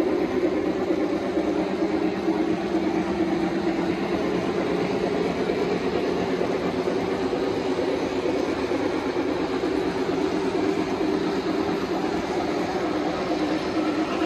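Three-rail O gauge model train passenger cars rolling past close by: the steady hum and rumble of metal wheels running on the track, with no letup.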